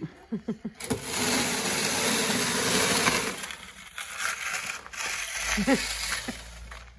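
Snow shovel blade scraping along a concrete pad, pushing heavy wet snow that sticks to the concrete: one long scrape of about two and a half seconds, then shorter scrapes. Brief voice sounds come near the start and again about five and a half seconds in.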